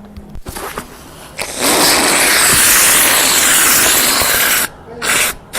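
A loud, harsh hissing noise that lasts about three seconds and cuts off, then two short bursts of the same noise near the end.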